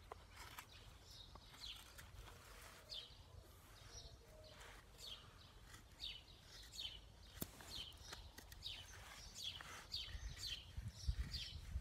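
A Taramundi knife blade carving a wooden stick in faint, quick strokes with a few sharp clicks. A bird's short falling chirps repeat throughout, and a low rumble rises near the end.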